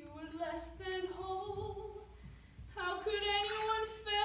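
A woman singing unaccompanied into a microphone in long held notes, breaking off about two seconds in and coming back on a higher phrase.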